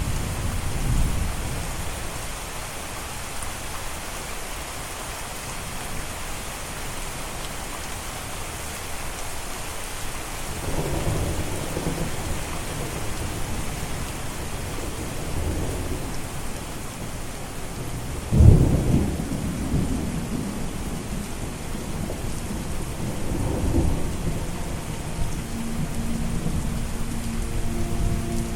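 Steady rain falling, with thunder rumbling several times; the loudest and sharpest roll comes about two-thirds of the way through. Near the end soft sustained musical tones come in under the rain.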